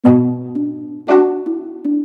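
Background music: plucked notes, with a strong chord struck about once a second that rings and fades, and lighter notes between.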